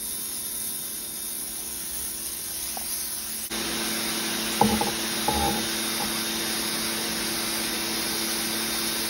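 Ryobi 1600 PSI electric pressure washer running with its zero-degree tip, the jet hissing steadily against concrete over the steady hum of the electric pump motor. Two brief knocks sound near the middle.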